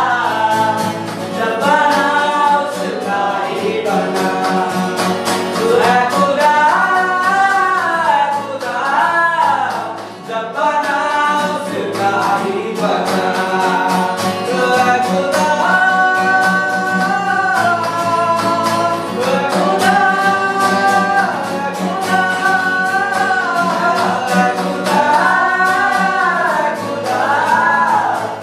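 Two male voices singing a Hindi ballad to a strummed acoustic guitar, the melody held and bent in long sung phrases over a steady strum.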